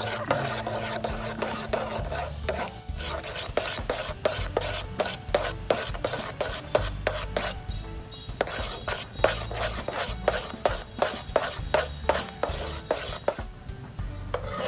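A spoon stirring and scraping around a stainless steel pot of honey as it boils down into candy, in rapid, irregular strokes of about four a second.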